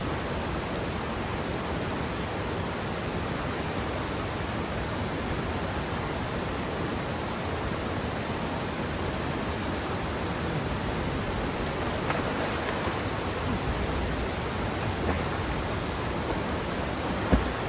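Steady rushing roar of a high waterfall pouring into its plunge pool, with a single short thump near the end.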